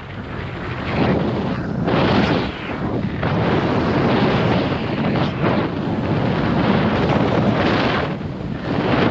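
Wind rushing over a skier's camera microphone on a fast run into a strong headwind, swelling and easing every second or two, mixed with the skis sliding and scraping on snow.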